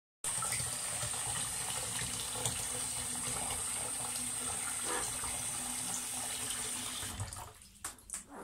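Tap water running steadily in a bathroom, stopping about seven and a half seconds in, followed by a few faint knocks.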